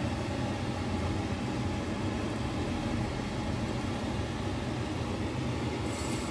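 Steady low hum throughout; near the end the hot deep-frying oil starts to sizzle as the first piece of marinated chicken is lowered into the saucepan.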